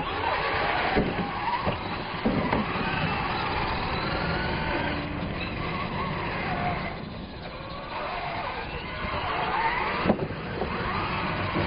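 Radio-controlled monster trucks' motors whining, rising and falling in pitch as they speed up and slow. A few sharp knocks come about a second in, around two seconds in and near the end.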